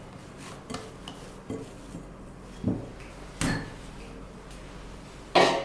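Kitchenware being handled on a work surface: a handful of separate clinks and knocks, the loudest near the end.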